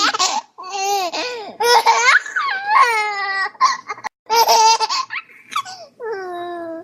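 A baby laughing: high-pitched, gliding giggles and squeals in bursts, with brief pauses between them.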